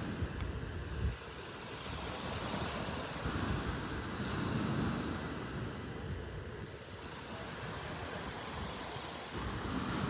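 Small waves breaking and washing up on a sandy beach, with wind buffeting the microphone; the sound swells and eases every few seconds, with a brief bump about a second in.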